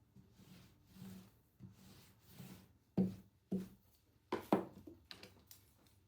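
Food-preparation handling sounds on a work surface: soft rubbing and scraping, with a few short knocks in the second half.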